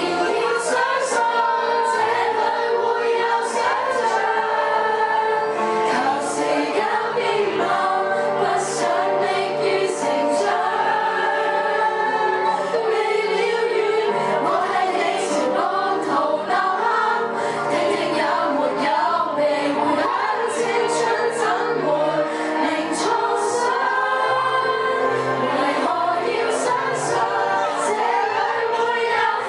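A group of young women singing a song together into a microphone, several voices at once.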